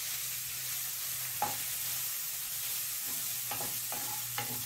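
Wooden spatula stirring rice and grated gooseberry in a nonstick kadai over a steady frying sizzle, with the spatula knocking against the pan once about a second and a half in and three times near the end.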